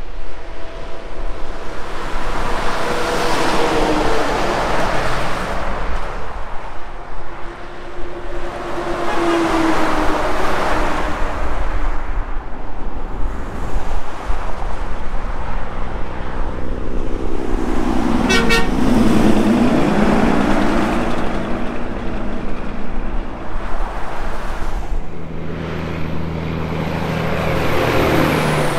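Highway traffic: a run of cars and semi trucks going by one after another, each swelling and fading with a falling pitch as it passes. Near the end a semi truck hauling a flatbed trailer comes close with a steady low engine drone that drops in pitch as it goes by.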